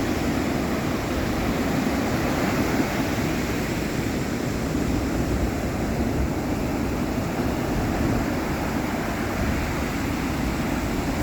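Ocean surf washing on the shore: a steady, even rush of waves with no single break standing out.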